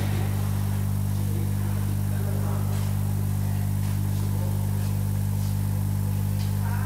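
Steady low electrical hum of the CCD laser label-cutting machine's equipment running, with a few faint clicks.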